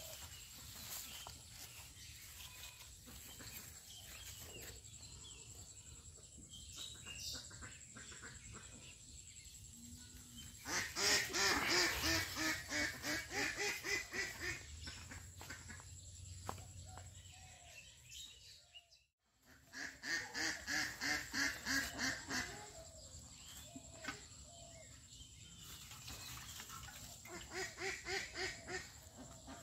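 Ducks quacking in rapid runs of repeated calls, in three bouts: about eleven seconds in, again after about twenty seconds, and near the end.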